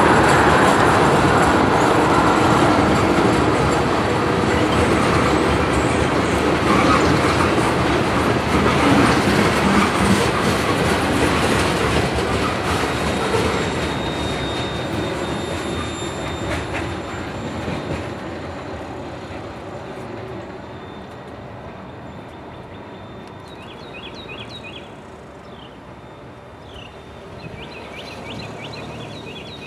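Freight train tank cars rolling past close by, with a brief high squeal about halfway through; the rolling noise fades steadily as the end of the train moves away. Birds chirp near the end.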